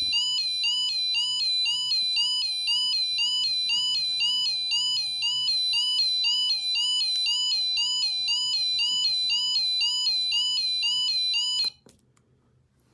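Model railway level crossing sound module playing a British-style level crossing alarm: an electronic two-tone warble repeating about twice a second, which cuts off suddenly near the end.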